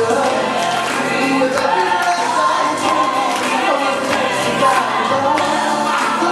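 Live singing of an upbeat Christian pop worship song over a full recorded backing track, with group or backing vocals joining in.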